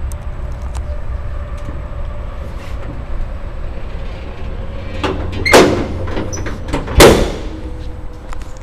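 The steel hood of a 1960 Chevrolet Brookwood wagon being shut: two loud metallic bangs about a second and a half apart, over a low steady rumble.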